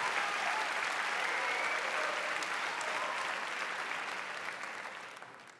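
Theatre audience applauding, the clapping gradually fading away near the end.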